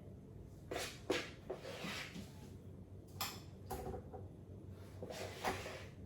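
A spoon knocking and scraping against a bowl and muffin tray as batter is spooned into muffin cases: short clinks and scrapes in three little bursts, some with a brief ring.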